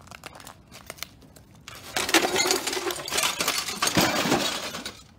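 Broken CRT glass shards and plastic housing clinking and rattling. A few scattered clicks come first; about two seconds in, a dense, loud clatter of crunching glass runs for roughly three seconds.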